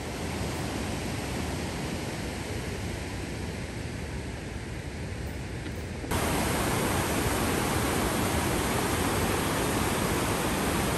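Mountain stream rushing over rocks, a steady hiss of white water. About six seconds in it cuts to a louder, brighter rush.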